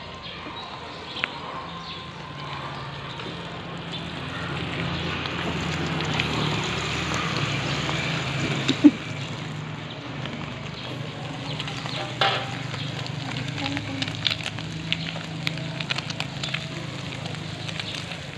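Sliced shallots, garlic and red chilli sizzling as they fry in oil in a wok, the hiss swelling in the first half. One sharp knock about halfway through, then scattered clicks of a metal spatula against the wok.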